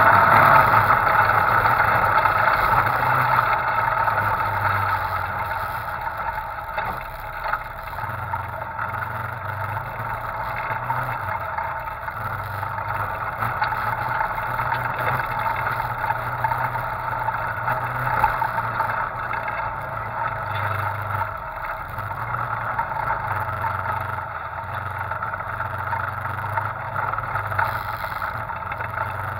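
Off-road vehicle's engine running steadily as it drives over a dirt and rock trail, louder for the first few seconds and then settling to a lower, even drone as the vehicle slows onto the rocky climb.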